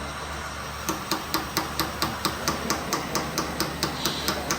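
Rapid, even hammering, about four to five blows a second, starting about a second in, typical of a hydraulic breaker hammer on a model RC excavator chiselling stone.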